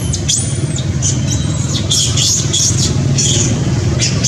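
Baby macaque crying in a string of short, high-pitched squeals, over a steady low rumble.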